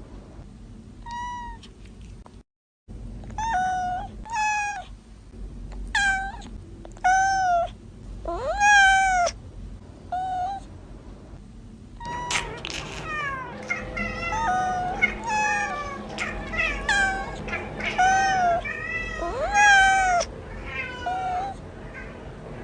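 Young kittens meowing: first single high-pitched meows one after another, then about halfway several kittens calling over each other in a dense chorus.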